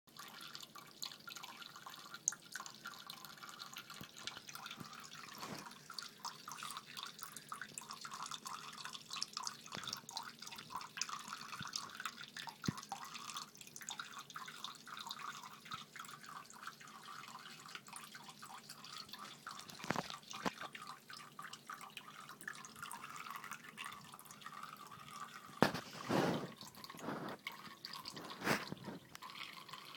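Tap running in a thin trickle into a sink while a cat laps from the stream, giving a steady hiss dotted with quick small wet clicks. A few louder knocks break in, the largest in the last few seconds.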